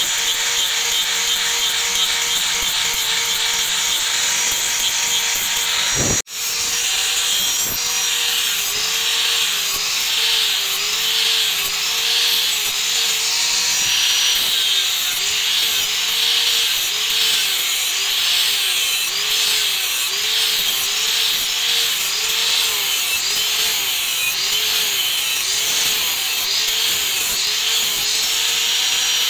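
Electric angle grinder running with an abrasive disc pressed against a forged steel cleaver blade and its wooden handle, grinding and smoothing the surface. The motor whine dips in pitch about once a second as the disc is pushed and swept across the steel, over a steady scraping hiss. It breaks off briefly about six seconds in.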